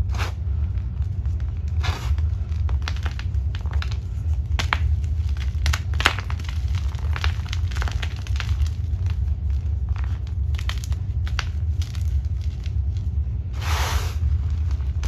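Hands crushing and squeezing a soft block of gym chalk, giving irregular crunches and crackles as it crumbles, with a bigger crunch about a second before the end. A steady low rumble runs underneath.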